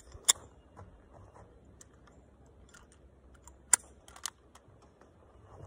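A few sharp, brief metallic clicks from a pistol being handled, the loudest about a third of a second in and near four seconds in, with smaller ticks between.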